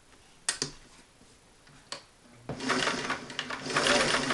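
A few sharp clicks, then about two and a half seconds in the Singer 327 sewing machine's internal motor starts and it runs fast, stitching a zigzag.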